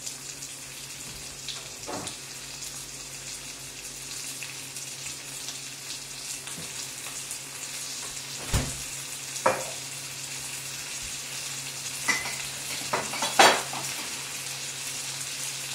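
Soaked, swollen wheat grains toasting in a hot frying pan, sizzling steadily. A few sharp clicks and knocks stand out in the second half, the loudest near the end.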